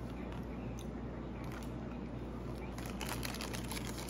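Quiet eating sounds over a steady low hum: faint clicks and crinkles come in about three seconds in, from chewing a burger and handling its paper wrapper.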